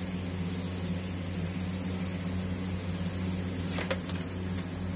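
Gravity-feed airbrush spraying: a steady high hiss of air over a steady low hum, with one brief tap about four seconds in.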